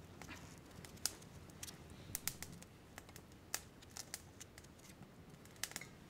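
Small campfire crackling: scattered, irregular sharp pops and clicks over a faint low background.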